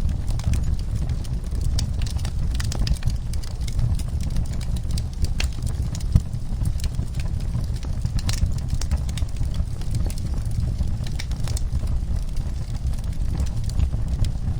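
Wood fire in a fireplace crackling, with frequent irregular pops and snaps over a steady low rumble of the flames; one sharper pop about six seconds in.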